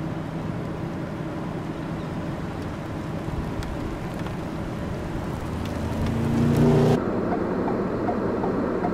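Steady rumble of a vehicle engine running with wind noise. About six seconds in a louder engine sound swells up, then cuts off suddenly a second later.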